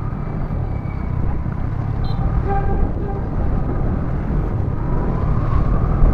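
Riding a Yamaha MT-15 motorcycle in city traffic: a steady low rumble of engine and wind. Another vehicle's horn gives a couple of short toots about two and a half seconds in.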